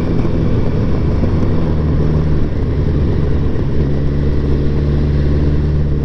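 Kawasaki GTR 1000 motorcycle's inline-four engine running steadily at road speed. Its note breaks briefly about two and a half seconds in, then settles again about four seconds in.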